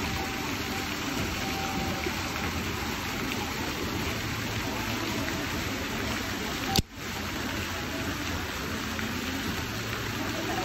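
A steady rushing hiss, broken about seven seconds in by a single sharp click as the Pro-Tech TR-5's Lerch spring-assisted blade snaps open and locks.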